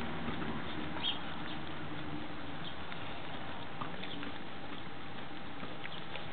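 A litter of Weimaraner puppies eating raw meat together from one bowl: steady chewing, smacking and lapping, with small clicks scattered throughout.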